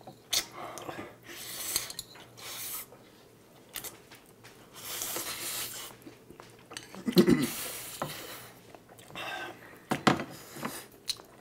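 Two people eating black-bean instant noodles: repeated slurps, the longest about five seconds in, and chopsticks clicking against porcelain bowls. A short low voice-like sound comes about seven seconds in.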